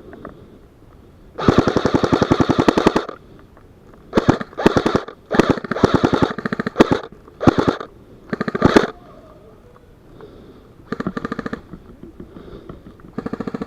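Airsoft rifles firing full-auto bursts of rapid clicking shots. One long burst of about a second and a half comes first, then a run of short bursts, a pause of a couple of seconds, and two more short bursts near the end.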